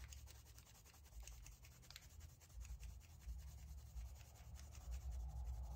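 Derwent drawing pencil colouring a swatch on sketchbook paper: faint, rapid scratchy strokes of the lead on paper.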